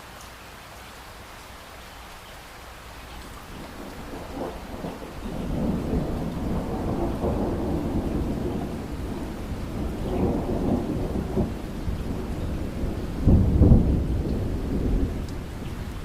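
Steady rain with a long roll of thunder that swells from about four seconds in, surges several times, is loudest near the end, then eases off.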